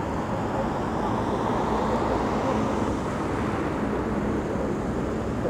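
Steady city street noise: road traffic passing, an even rumble with no distinct events.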